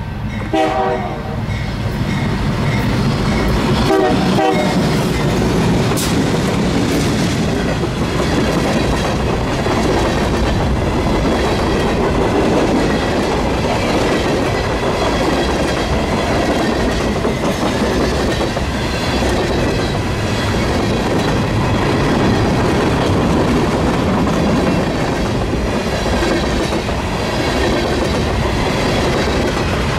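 A freight train passing close, led by two GE Dash 8-40 diesel-electric locomotives with their 16-cylinder 7FDL engines. Two short horn chords sound about half a second in and around four seconds in, the second dropping slightly in pitch as the lead unit goes by. A long string of tank cars follows, steel wheels rolling and clattering steadily on the rails.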